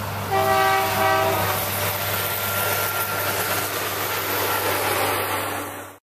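Multi-tone air horn of a Norfolk Southern maintenance-of-way rail vehicle sounding two short blasts close together, starting just after the beginning, over the steady low rumble of the approaching machine.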